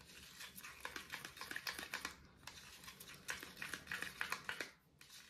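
A small metal stirrer clicking and scraping against the sides of a small cup of thick paint as it is stirred by hand, mixing colorant drops into the paint. The clicks come quickly and unevenly, with two short pauses.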